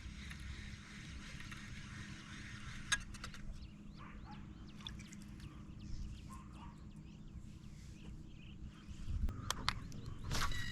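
Birds chirping over a steady low rumble, with a few sharp clicks, one about three seconds in and several near the end.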